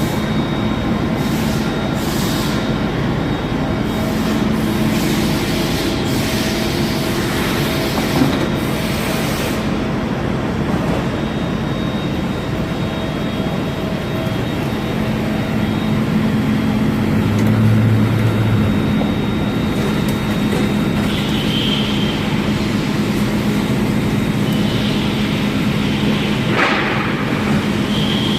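Okuma LVT300M CNC lathe running: a steady mechanical hum and hiss with a few constant whining tones, a deeper hum rising briefly partway through.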